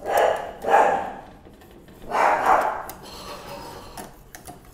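A wire whisk scraping and clicking against a stainless steel saucepan as chocolate pudding thickens over a low flame, with three loud short bursts over it, the first two close together at the start and the third about two seconds in.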